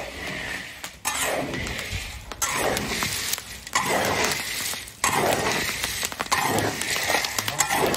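Salted apricot pits being stirred and scooped in a dry kazan. Each sweep of the scoop makes a rattling scrape, about one every second or so. Through it runs a crackle of shells splitting open in the heat, the sign that the roasting pits are ready to open.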